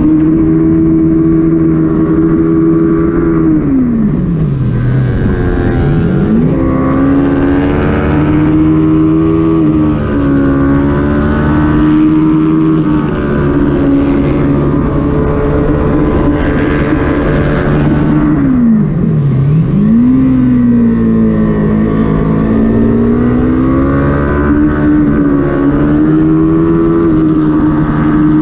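Kawasaki Ninja 400 parallel-twin race engine heard onboard at high revs, its pitch held steady through long stretches. Twice, about five seconds in and again near nineteen seconds, the revs fall sharply as the bike slows for a corner, then climb again under acceleration.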